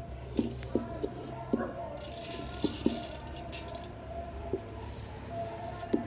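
Roasted sesame seeds being pounded in a stone mortar: dull, irregular knocks, with a gritty rattle of seeds for a second or two in the middle.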